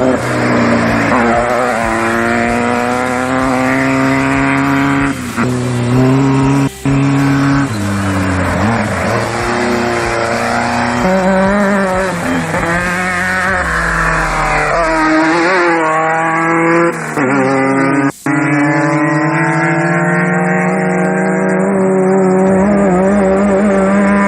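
Off-road race vehicle engines revving and passing by, their pitch rising and falling. The sound breaks off for a split second twice.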